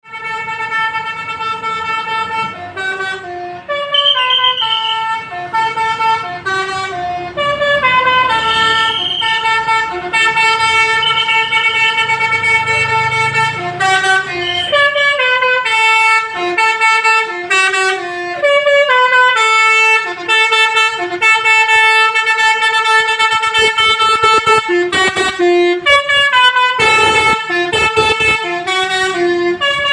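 A bus's Basuri telolet horn, a multi-tone musical air horn, playing runs of notes that step up and down, several tones at once, again and again. Engine rumble sits low underneath at times.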